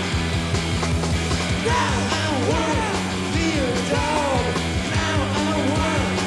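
Live punk rock band playing: a steady, driving bass and drum beat, with wavering, sliding high notes coming in over it about two seconds in.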